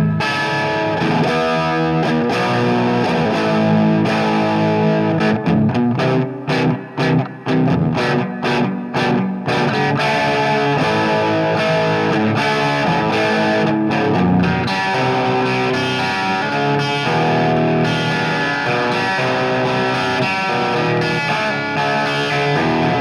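Rock music with distorted electric guitar, broken by a run of short stop-start chords about six to nine seconds in.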